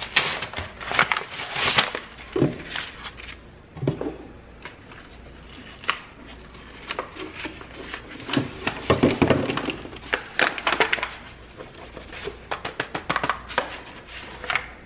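Paper and plastic bags of flour crinkling and rustling as flour is poured and shaken into a clear plastic storage container, with a few soft thuds and, near the end, quick runs of small taps.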